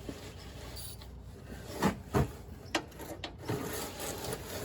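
Socket wrench working at a tight oil drain bolt under the truck: scraping and rubbing metal with a few sharp knocks about two to three seconds in.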